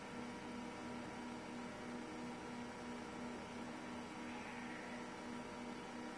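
Steady electrical hum over a constant hiss, with no other event.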